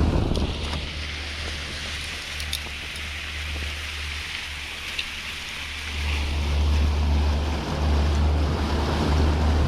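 Fishing boat underway offshore: a low engine drone under rushing water, with wind gusting on the microphone. It grows louder for the last few seconds.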